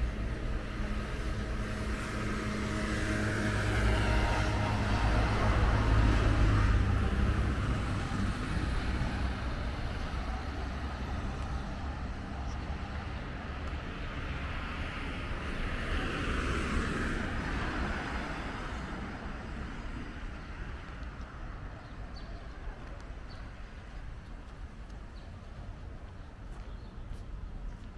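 Motor vehicles passing on a street. The first is louder, with a low engine hum that builds to a peak a few seconds in and then fades. A second, quieter pass comes past the middle, and low traffic noise goes on underneath.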